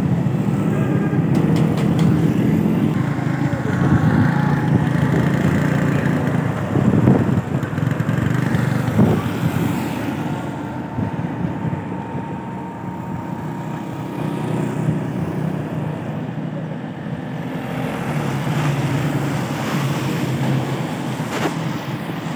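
Motorcycle running steadily at riding speed, its engine drone mixed with road noise from the wet tarmac; it gets a little quieter after about ten seconds.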